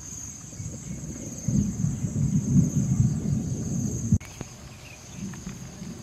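Insects chirring in a steady high-pitched drone, over a low rumbling noise that grows louder about one and a half seconds in and cuts off abruptly about four seconds in.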